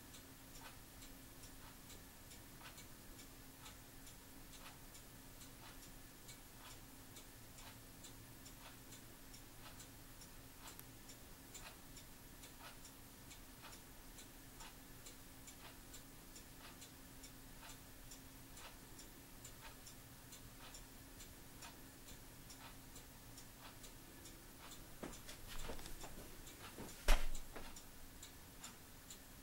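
A clock ticking steadily and faintly, about two ticks a second, over a faint steady hum. Near the end there is a short rustle and then a single sharp knock, the loudest sound.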